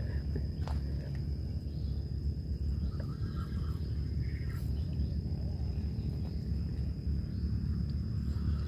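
Outdoor lakeside ambience: a steady high insect drone over a constant low rumble, with a few faint clicks.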